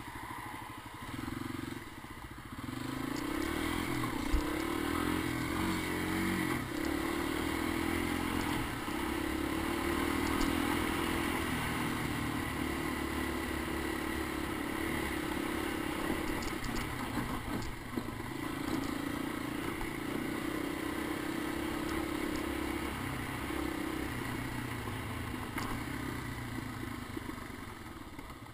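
Honda ATC250ES Big Red three-wheeler's four-stroke single-cylinder engine running. It gets louder about two and a half seconds in and then holds a steady note.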